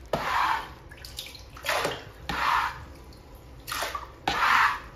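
Water splashing and swishing in repeated short strokes, about five in a few seconds, coming roughly in pairs.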